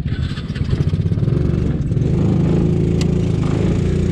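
Small 125cc mini jeep engine running, picking up about a second in and holding a steady higher speed, with one sharp knock about three seconds in.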